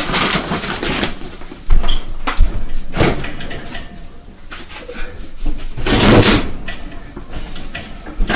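Groceries being handled and put away: a few sharp knocks of packages set down, and a longer rustling, handling sound about six seconds in.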